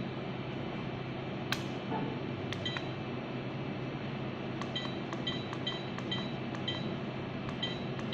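Camcorder menu beeps: short, high electronic beeps, about two a second, as its buttons are pressed to step through the menus, with a single click about a second and a half in.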